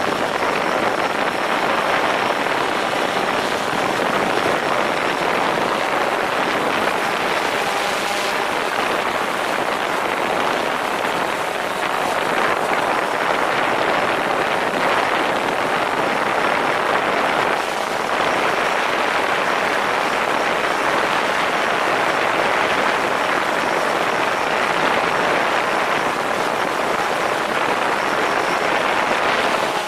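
DJI Phantom 4 quadcopter in flight, heard from a camera hung just beneath it: a loud, steady rush of propeller wash and wind over the microphone, with a faint high whine at times.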